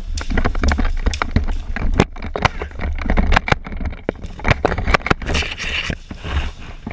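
A player moving on foot: a quick, uneven run of footfalls, scrapes and knocks from gear, with a steady low rumble of wind or handling on the camera's microphone and a brief hiss of rustling about five seconds in.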